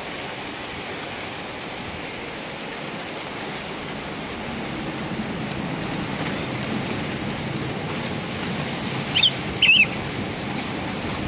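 Heavy thunderstorm rain pouring down steadily, with a low rumble growing from about halfway. Two short high chirps come near the end.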